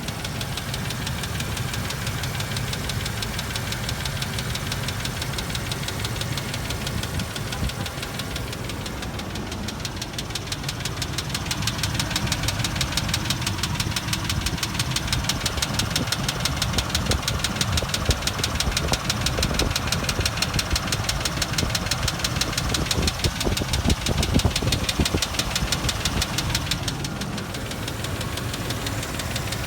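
2001 Range Rover P38's V8 engine idling with a fast, even ticking, which a mechanic puts down to low oil pressure from the oil pump.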